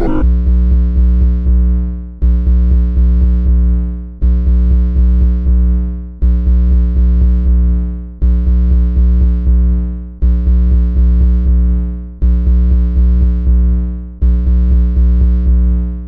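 Electronic music: a synthesizer loop that repeats about every two seconds, a deep sustained bass under quick repeating pitched notes, each cycle fading before it restarts abruptly.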